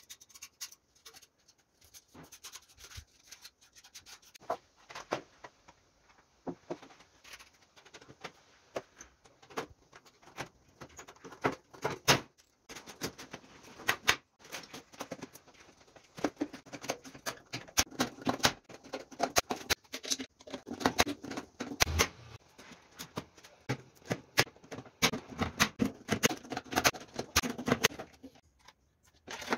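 Hand pop-rivet gun setting rivets into thin galvanized sheet-metal body panels: irregular clicking and metallic rattling of the sheet, with a handful of sharp snaps.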